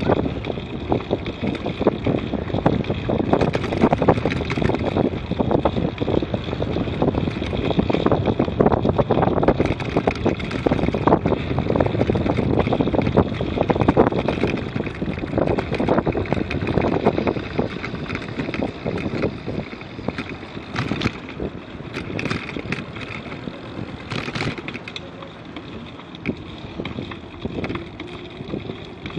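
Wind noise on the microphone of a camera riding on a moving bicycle, with tyre noise from the path and a few sharp rattles near the end. The noise eases in the second half as the bike slows.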